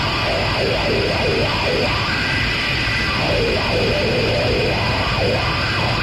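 Harsh noise improvisation: a dense, steady wall of hiss with several held high tones, over which wavering, warbling mid-pitched swells rise and fade every second or so.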